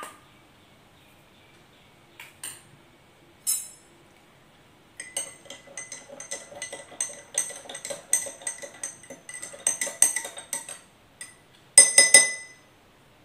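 Steel spoon stirring salt into a glass of water, clinking quickly and repeatedly against the glass with a ringing tone, after a few scattered clicks. A few louder clinks come near the end.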